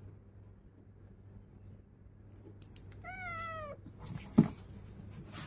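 A young cat meows once, a short, slightly falling cry about three seconds in, while its claws are being clipped. A few small clicks come just before the meow, and a dull knock just after it is the loudest sound. A steady low hum runs underneath.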